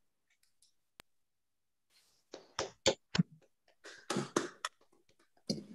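A few scattered hand claps over a video call, starting about two seconds in after a near-silent pause broken by a single click.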